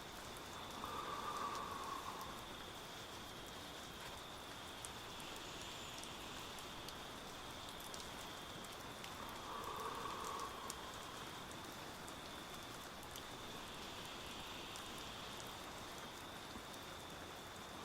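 Steady rain with a man's slow, deep breaths, about one every eight or nine seconds: about a second in, near the middle, and again at the end. The breathing is paced slowly for a panicking partner to breathe along with.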